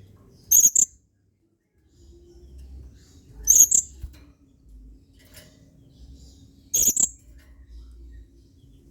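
Blue-crowned hanging parrot (serindit) giving three short, shrill, very high calls about three seconds apart, each a quick double note.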